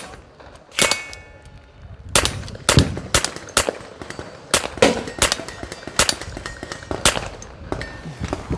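A .22 LR pistol fitted with a tiny Bowers Group Bitty suppressor fires a string of about a dozen suppressed shots of standard-velocity ammunition, irregularly spaced and at times two or three a second. Each shot is a short, sharp pop, really quiet for a gunshot.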